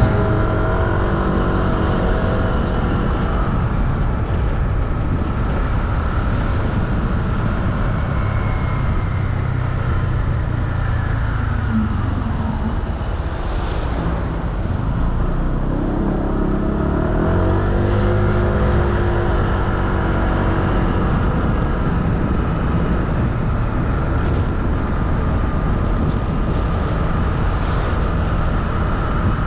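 Motorcycle engine running under a steady rush of road and wind noise. Its pitch falls near the middle as it slows, then climbs again as it picks up speed.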